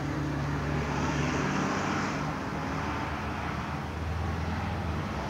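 School bus engines running in a bus lot: a low, steady engine hum, with a swell of hissing noise about one to two seconds in.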